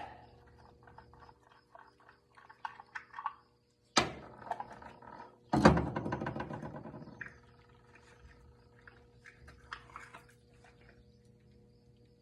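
Workshop handling noises: light clicks and taps, a sharp knock about four seconds in, and a louder clank about a second later that rings on briefly before dying away.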